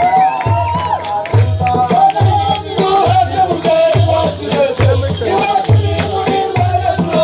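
Traditional Rwandan dance music: drums beating a steady rhythm of about two strokes a second under a wavering melody line, with rattling percussion.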